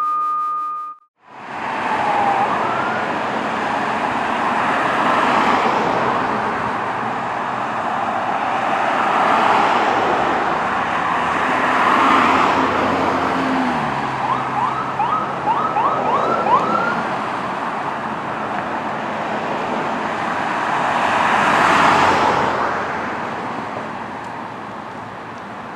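Emergency siren wailing in slow rising and falling swells, from a Ford E-Series ambulance responding to a call, with a quick run of short rising yelps about halfway through. A steady electronic tone cuts off about a second in, just before the siren starts.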